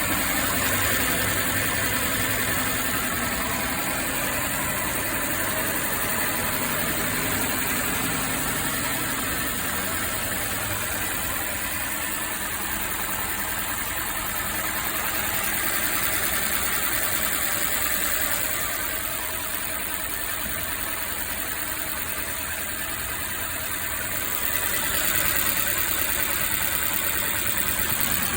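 Mercedes-Benz M264 inline-four petrol engine idling with a misfire, which the owner puts down to a damaged cylinder head valve.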